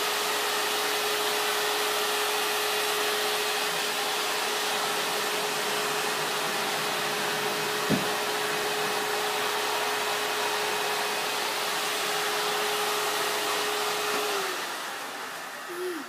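Steady whirring hiss of a running electric appliance motor with a constant hum, which winds down and stops near the end. A single sharp knock about halfway through.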